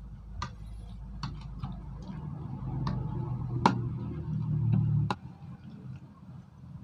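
Stainless-steel ladle clinking against a bowl while broth is stirred into seasonings: a handful of sharp, irregular clinks, the loudest about three and a half seconds in, over a low steady hum.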